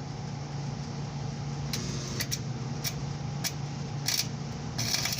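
MIG (wire-feed) welder making short tack welds on an exhaust pipe: a few brief crackling bursts, the longest near the end, over a steady low hum.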